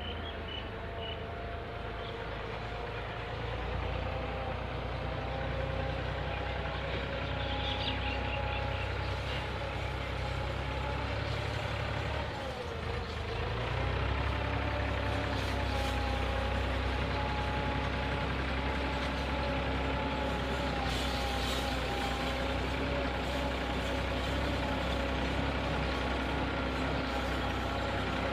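Steady machine running: a low rumble under a whine of several pitches. The whine dips in pitch and loudness for a moment about halfway through, then picks back up a little louder.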